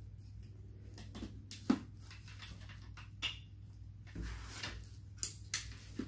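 Hard plastic and metal parts of a stick vacuum knocking and clicking as its metal extension tube is worked into the handheld body: a handful of sharp separate clicks, with a short rustle about four seconds in.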